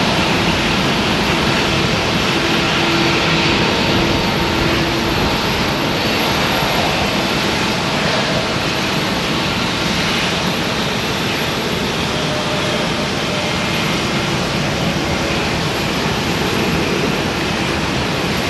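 Jet airliner's engines at full takeoff thrust as it climbs away, a steady dense jet noise that eases slightly over the stretch.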